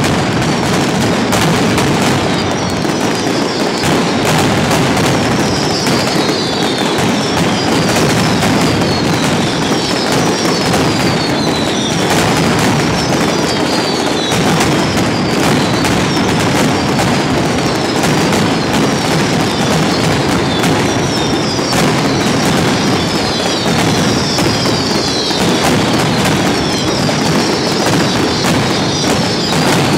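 Mascletà: a dense, unbroken barrage of firecrackers (masclets) exploding along strings hung between poles, a continuous rattle of loud bangs. Falling whistles sound over it again and again.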